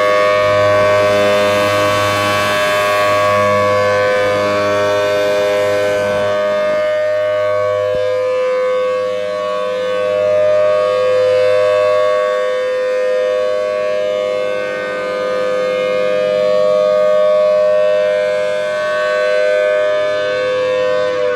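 Federal Signal Thunderbolt 1000T dual-tone warning siren sounding a steady alert tone, its two-note chord slowly swelling and fading in loudness. A low hum under it stops about halfway through.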